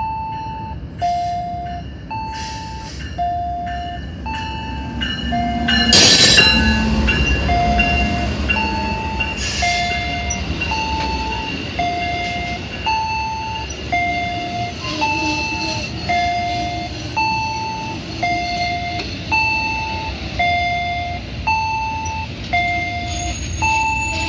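Amtrak train led by a P42DC diesel locomotive passing through a station. There is a short loud horn sound as the locomotive goes by about six seconds in, then the steady rumble of the passenger cars rolling past. Throughout, an electronic warning tone alternates between a high and a low note, about one pair every one and a half seconds.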